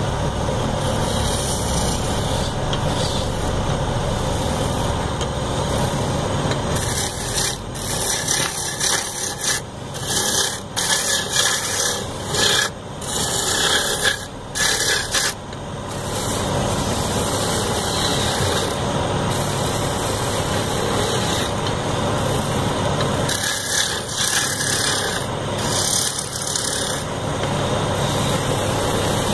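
Wood lathe running steadily while a hand-held turning tool scrapes and cuts the spinning wooden sofa leg. The cutting is loudest and most uneven from about a quarter of the way in to about halfway, then settles back to a steadier scraping.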